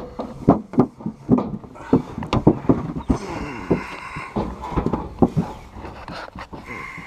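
Irregular knocks and clunks, with a brief scrape about halfway through, as a pickup's fuel tank is lifted and shifted into place beneath the truck.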